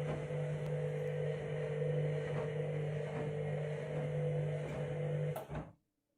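Washing machine running on a rapid wash: a steady motor hum with a low and a higher steady tone and a few faint knocks. It cuts off suddenly near the end.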